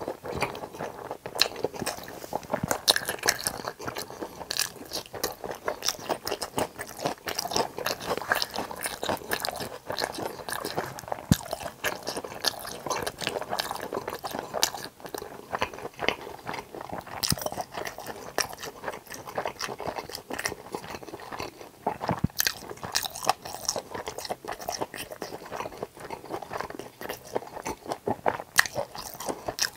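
A person chewing and biting crispy fried tangsuyuk (Korean sweet-and-sour pork) close to the microphone: a continuous, irregular run of crunches.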